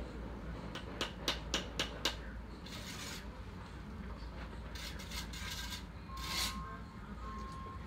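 Steel brick trowel tapping a brick into its mortar bed with about five quick taps, then rasping scrapes of the trowel across brick and mortar. A reversing alarm beeps steadily from about six seconds in.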